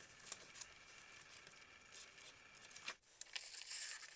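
Faint handling of the paper user manual and cardboard box, a few light ticks and rustles, then from about three seconds in a plastic bag crinkling as the bagged lens hood is pulled out of the box.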